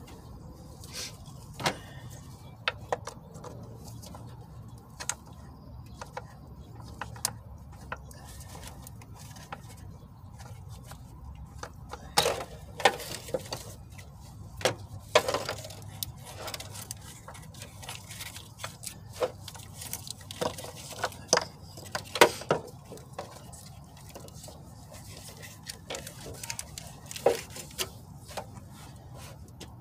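Irregular metallic clicks and clinks of hand tools and parts being handled while working on a car engine, over a steady low hum.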